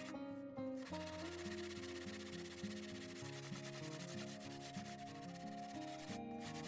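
Steady rasping of sandpaper rubbing on wood, dropping out briefly near the start and again near the end, over background music.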